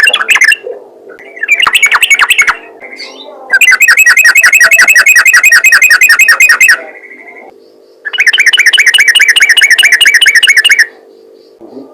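Sooty-headed bulbul singing its rapid-fire chattering song in bursts of quickly repeated notes. There is a short burst about a second and a half in, then two longer bursts of about three seconds each, with a faint steady hum underneath.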